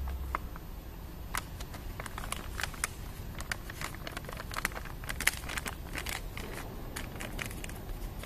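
Clear plastic bag crinkling in short, irregular crackles as honey powder is shaken out of it into a steel pot.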